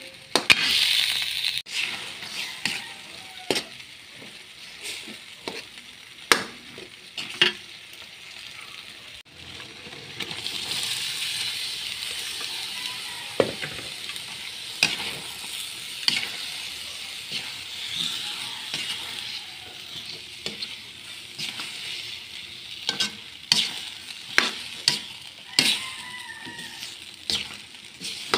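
Food frying and sizzling in a metal wok: sardines in tomato sauce, then sliced patola (sponge gourd), stirred with a metal spatula that clinks and scrapes against the pan many times. The sizzle grows louder about ten seconds in, when the patola goes into the hot pan.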